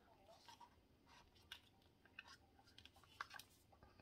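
Near silence with a few faint clicks and taps from tiny hardcover books being handled in the fingers.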